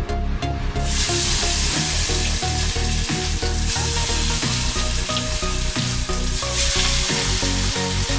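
Marinated chicken pieces dropped into hot oil in a steel kadai and deep-frying, a loud sizzle that sets in about a second in and keeps going as more pieces go in. Background music with a steady beat plays underneath.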